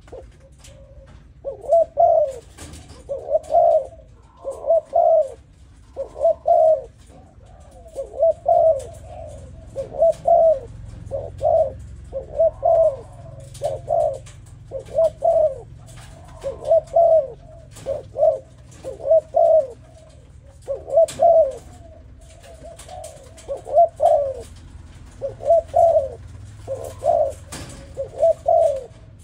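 Young spotted dove of the 'Malaysia' cooing strain calling over and over: short phrases of two or three coos, each repeated every second or two with brief pauses between.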